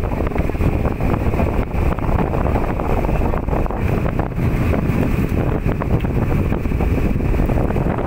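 Wind buffeting the microphone over the steady running of a small boat's engine under way at sea.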